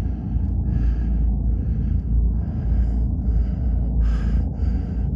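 A person breathing heavily and fast close to the phone's microphone, a breath roughly every three-quarters of a second, over a steady low rumble.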